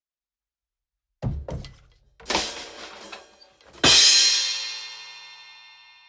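Drum kit crash effect: a quick fill of drum hits starting about a second in, then a louder hit about 4 seconds in with a crash cymbal that rings and slowly fades away.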